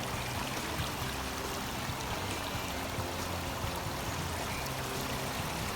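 Steady rushing of running water, even and unbroken, with a faint low hum underneath.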